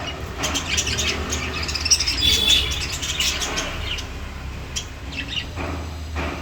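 A flock of lovebirds chirping, many short high calls overlapping, busiest in the first few seconds and thinning out toward the end, over a low steady hum.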